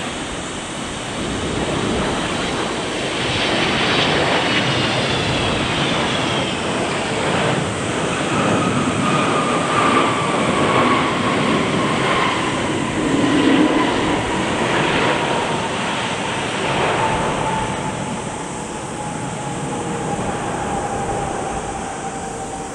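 Boeing 777-300 jet airliner's engines as it lands. The noise builds to a peak midway and then eases, with a high whine falling steadily in pitch as the aircraft goes past.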